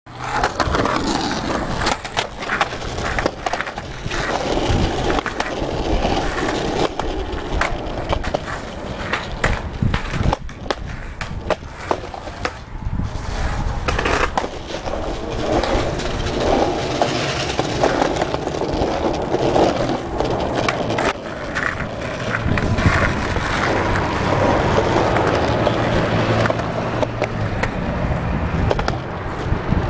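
Skateboard wheels rolling steadily over concrete sidewalk and asphalt, broken by many sharp clacks from the board's pops and landings.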